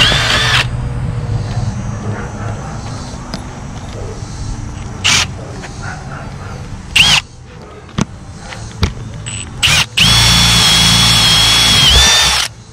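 Cordless drill boring holes in treated lumber boards: its whine stops just after the start, comes back in three short bursts with a few clicks between, then runs steadily for about two and a half seconds near the end, its pitch dipping briefly under load before it stops.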